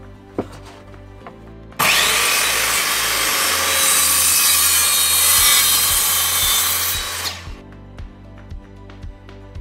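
Handheld circular saw starting up about two seconds in and crosscutting a wooden board as it is pushed along a slide-table rail. It runs loud and steady for about five seconds, then shuts off and winds down.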